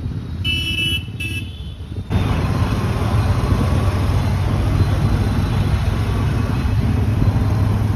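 Road traffic heard from a moving scooter. Two short horn toots sound in the first second or so. About two seconds in, the sound jumps to a louder, steady rush of engine and wind noise with a low hum.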